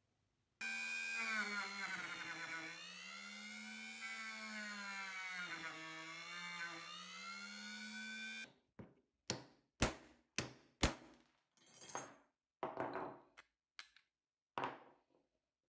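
Small handheld rotary tool running with a steady, slightly wavering whine as its sanding drum grinds the pivot rivet of an old pair of scissors; it stops abruptly about two-thirds of the way through. Then a series of about nine sharp hammer blows on a punch, driving the rivet out of the scissors held in a vise.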